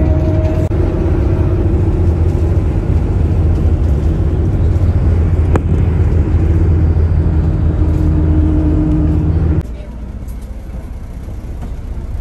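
Inside a moving bus at highway speed: steady engine drone and road rumble. About nine and a half seconds in it drops suddenly to a quieter bus-interior hum.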